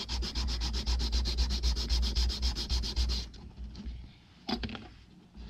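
Small wooden craft piece rubbed back and forth by hand on a sanding pad to sand its bottom flat, in quick even strokes that stop about three seconds in. A short light knock follows about a second later.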